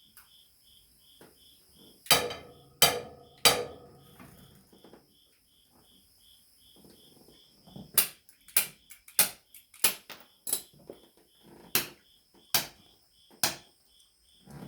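Sharp metal-on-metal knocks and clinks from hand tools working on a tractor's manifold hardware: three close together about two seconds in, then about ten more at a steady pace of roughly one every two-thirds of a second from the middle on. Crickets chirp steadily throughout.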